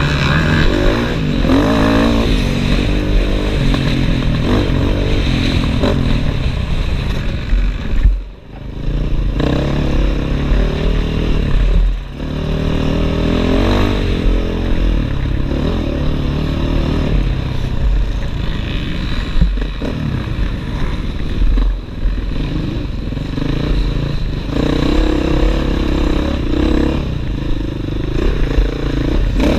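Dirt bike engine on an enduro course, heard close up from the handlebars, its revs rising and falling as the rider works the throttle and gears. The engine note drops away sharply for a moment about eight seconds in, then picks up again.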